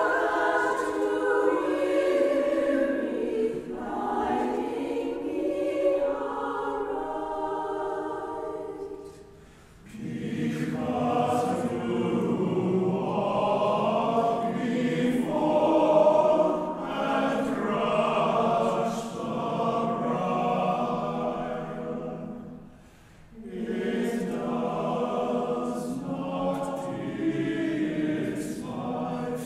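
Mixed choir singing, breaking off twice briefly. After the first break, about ten seconds in, lower voices fill out the sound.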